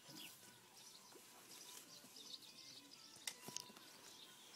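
Faint birds chirping over quiet open-air background, with two sharp clicks a little over three seconds in.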